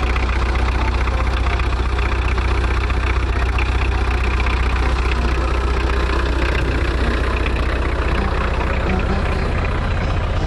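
Volkswagen Golf Mk2 engine idling steadily, a constant deep rumble with no change in speed.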